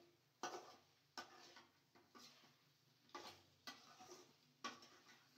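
Faint, irregular clinks and taps of kitchenware being handled: about six short knocks over five seconds, a few with a brief ring.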